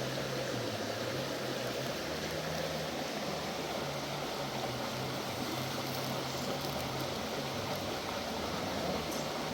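Steady rushing of river water, with a faint low hum underneath that shifts slightly in pitch.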